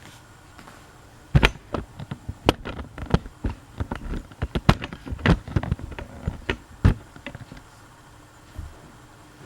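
A run of irregular sharp clicks and knocks lasting about six seconds, over the faint steady hum of a Casablanca Four Seasons 3 ceiling fan running.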